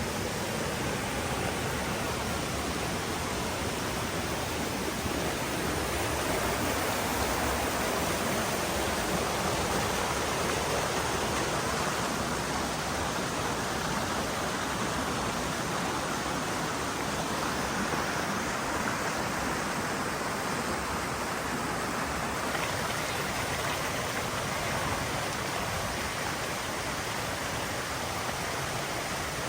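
Steady rush of water cascading down a waterfall, an even hiss with no break.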